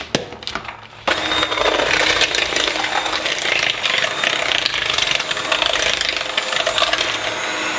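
Electric kitchen mixer switched on about a second in, running steadily as it beats a stiff cookie dough full of chopped nuts and chocolate in a bowl. A few light clicks of the appliance and bowl come before it starts.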